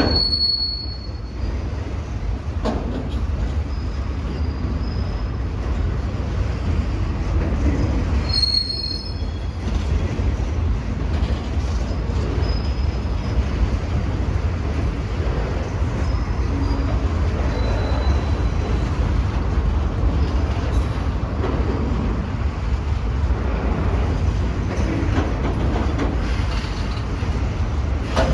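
Freight train rolling steadily past, a continuous low rumble of wheels on rail with brief high-pitched wheel squeals, sharpest right at the start and about eight seconds in.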